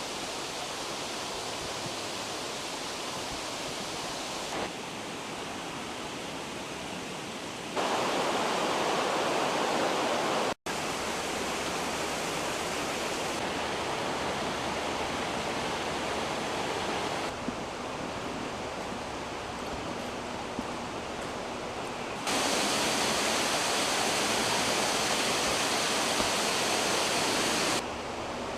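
Rushing floodwater: a steady, even rush of fast-flowing water whose loudness and tone jump abruptly several times, with a brief dropout about ten seconds in.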